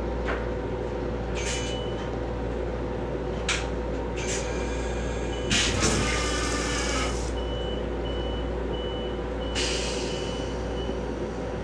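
M7 railcar toilet going through its flush cycle: short hisses, then a longer rush of rinse water into the stainless-steel bowl, over a steady hum. A short high beep repeats about twice a second through the second half.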